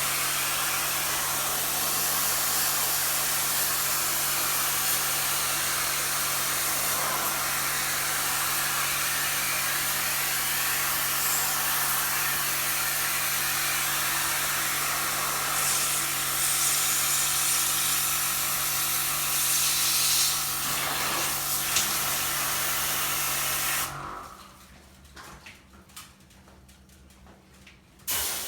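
High-pressure washer running steadily, its pump motor humming under the hiss of the water jet spraying into an air conditioner. It cuts off suddenly about four-fifths of the way through.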